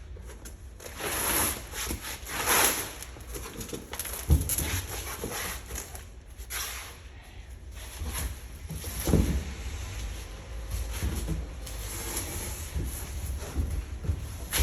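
Irregular rustling and handling noise, with dull knocks about four and nine seconds in, over a low rumble.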